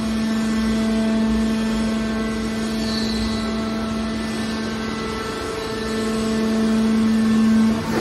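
Hydraulic power unit of a scrap metal baler running under load as the ram pushes a compressed bale of scrap wire out of the chamber: a steady mechanical hum with a strong held tone. The tone drops away just before the end.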